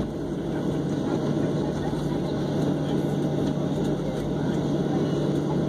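Cabin noise inside a Boeing 737-700 taxiing onto the runway: the CFM56-7B turbofan engines running at taxi power, heard as a steady rumble with a constant low hum.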